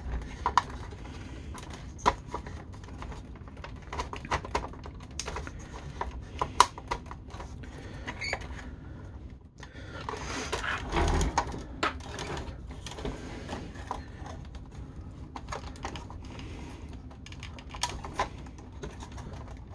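Hard plastic parts of an Acid Rain toy vehicle clicking and knocking as they are handled and turned over: irregular light clicks, with a denser spell of handling about ten seconds in.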